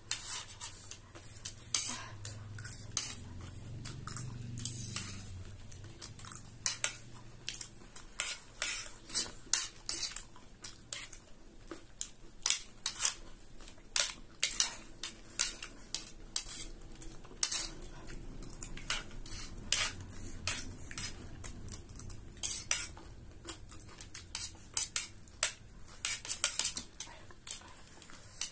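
Small metal spoons clinking and scraping against ceramic plates while scooping up chatpate, in frequent, irregular sharp clicks.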